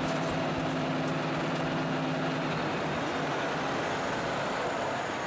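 Heavy diesel machinery running steadily: a road milling machine with a dump truck under its loading conveyor. A low hum drops out about two and a half seconds in, leaving an even rumble.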